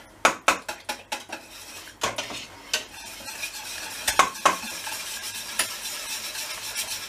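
A metal utensil stirring thick crepe batter of flour, yogurt and water in a stainless steel pot, with irregular clinks against the pot's sides. From about three seconds in there is a steady wet swishing.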